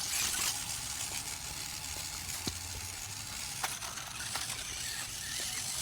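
Small RC rock crawler driving on sand: a steady gritty crunching of its tyres in the sand under the hum of its motor and gears, with a few sharp clicks.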